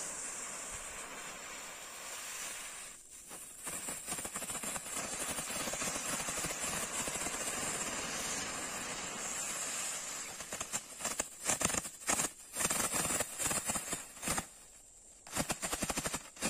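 Small ground firework (a 'stone' cracker) burning with a steady hiss as it throws sparks and smoke. From about ten seconds in it sputters in uneven crackling bursts with short gaps between them.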